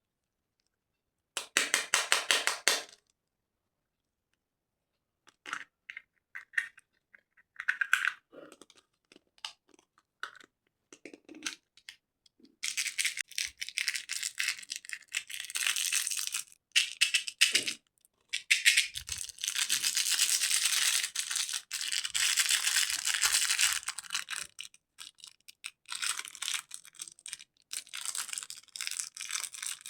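Candy wrappers crinkling and tearing. A short burst of rapid crackle comes near the start, then scattered clicks and rustles, then long stretches of dense crinkling through the second half.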